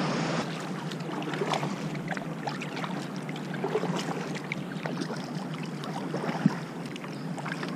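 Kayak paddling: the paddle dipping, with water splashing and dripping in an uneven patter, and one sharp tap about six and a half seconds in.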